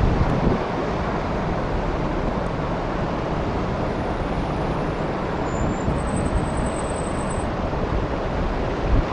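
Wind buffeting the microphone over a steady rush of road traffic on the bridge, with gusty low rumble. A faint thin high tone is heard in the middle.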